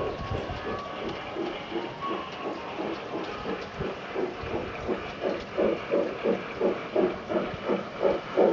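A garden-scale model steam locomotive approaches out of sight. Its rhythmic chuffing, about three chuffs a second, grows steadily louder from about halfway through.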